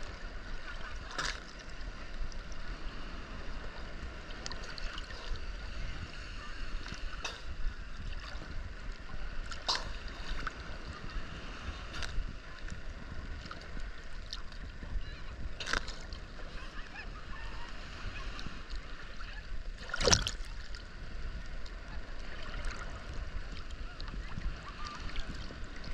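Seawater sloshing and lapping right against a camera held at the surface, with a low rumble of moving water and a handful of short sharp splashes, the loudest about twenty seconds in.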